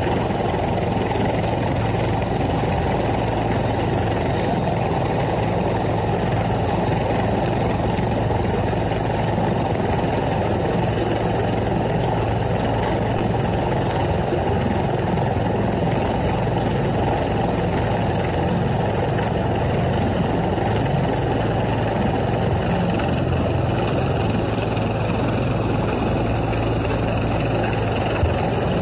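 Rescue helicopter hovering low overhead, its rotor and engine making a loud, steady drone with a low hum underneath.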